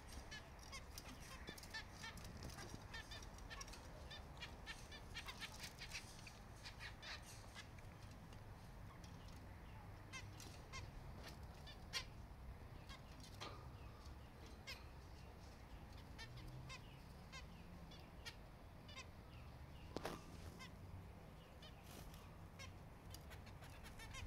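Faint, scattered short nasal calls and small ticks from finches in a wicker nest basket, with a sharper tick about twelve seconds in and a brief call about twenty seconds in.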